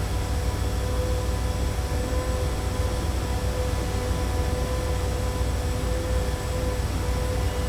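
Busy city street ambience: a steady low rumble of traffic and construction-site machinery, with a constant machine hum running through it and no distinct single event.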